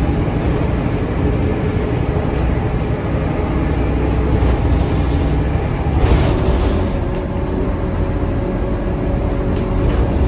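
Scania K230UB city bus's rear-mounted five-cylinder diesel engine and drivetrain running under way, heard inside the passenger cabin with road rumble. A brief louder rattle comes about six seconds in.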